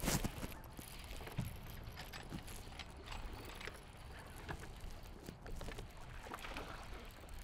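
Small waves slapping against a bass boat's hull over a low wind rumble, with scattered irregular knocks and clicks; the loudest knock comes right at the start.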